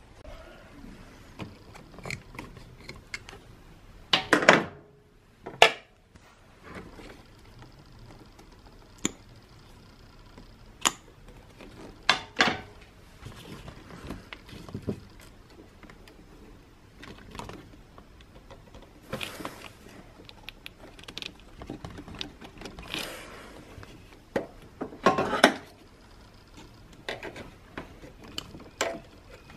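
Scattered clicks, knocks and light rattles of hands and a tool working among the hoses and plastic fittings of a car's engine bay, as a small vacuum hose is worked off its fitting. About half a dozen sharper knocks stand out.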